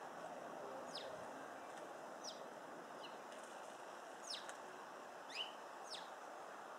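Hummingbird giving short, high chip notes that drop sharply in pitch, scattered about once a second, over a faint steady hiss.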